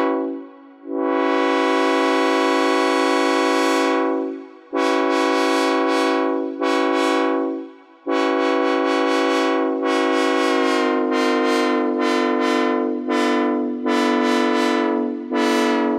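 Synthesized Nathan K5HL five-chime locomotive air horn, a tuned third-generation model, sounding a horn show. It plays a short toot, then a long blast of about three seconds, two shorter blasts, and a quick run of short blasts.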